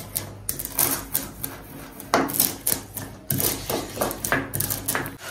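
Round hand-held stone crushing whole seeds on a flat stone grinding slab: a run of sharp, gritty knocks and scrapes, several a second.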